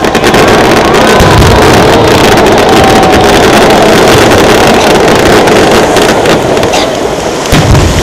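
Fireworks going off: a loud, continuous rumbling roar thick with crackles, then a couple of sharp bangs near the end.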